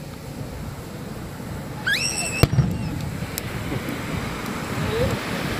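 Fireworks display: a short rising whistle from a whistling shell cuts off in a single sharp bang about two and a half seconds in, followed by a couple of faint crackles. Underneath runs a steady low rush of surf.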